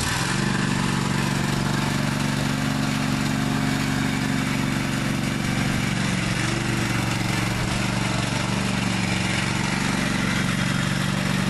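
Riding lawn mower's 15-horsepower Kawasaki engine running at a steady speed.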